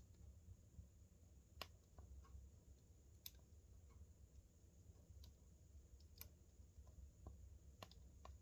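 Faint crackling of burning wood logs: sharp, irregular pops and snaps a second or two apart, over a faint low steady rumble.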